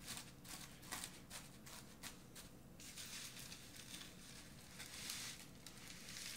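Faint, irregular crackling and rustling of crushed potato chips being pressed by hand onto a flattened, egg-washed chicken breast as a crunchy coating.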